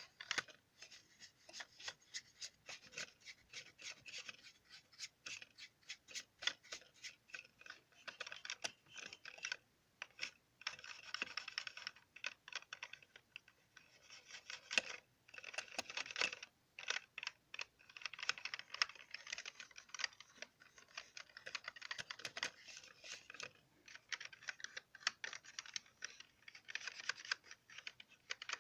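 Computer keyboard keys clicking in quick, irregular runs of typing and tapping, with brief pauses about ten and thirteen seconds in.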